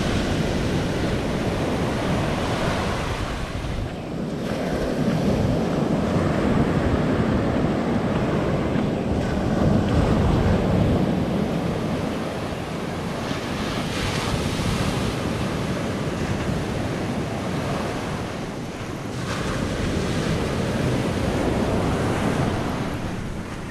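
Small surf breaking and washing up the sand at the water's edge, swelling and ebbing as each wave comes in, with wind rumbling on the microphone.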